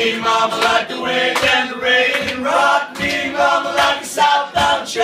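Strummed acoustic guitar with several voices singing a chorus together, live.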